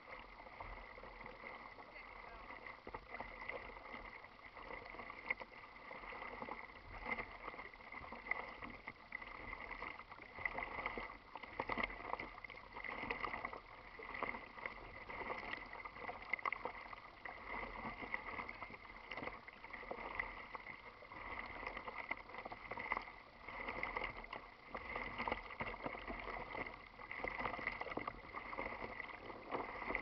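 Water lapping and splashing against a plastic kayak's hull as it is paddled, coming in uneven surges every second or so, with a faint steady high tone throughout.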